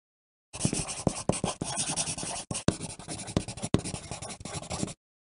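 Pencil writing on paper: a quick run of short strokes with a couple of brief breaks. It starts about half a second in and cuts off suddenly just before the end.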